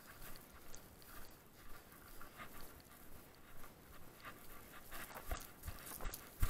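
A runner panting hard, about two to three breaths a second, with footfalls on grass; the low thuds of the steps grow stronger in the last second or so.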